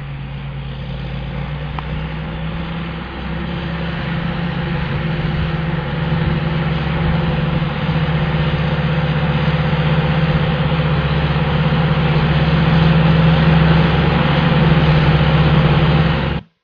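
John Deere 8530 tractor's six-cylinder diesel engine running steadily under load while pulling a plough, growing gradually louder as it comes closer. The sound cuts off abruptly near the end.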